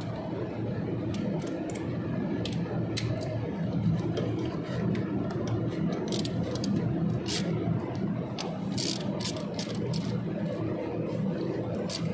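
Scattered metallic clicks and ticks of hand tools working on metal parts, over a steady low mechanical hum; the clicks come thickest in the middle.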